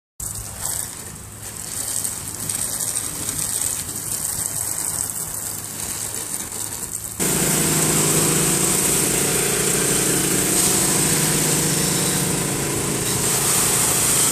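Pressure washer's engine running steadily with a loud high hiss over it; about seven seconds in the sound cuts abruptly to a louder, closer take of the same running machine.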